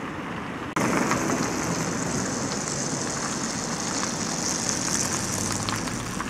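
City street traffic: a steady hiss of tyres and engines from cars on the road, with a car driving past close by near the end. The noise jumps louder abruptly about a second in.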